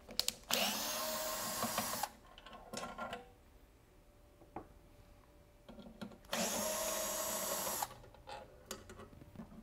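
Cordless electric screwdriver backing flathead screws out of the grinder's discharge chute housing. The motor whines in two runs of about a second and a half each, about half a second in and again about six seconds in, with small clicks of handling between.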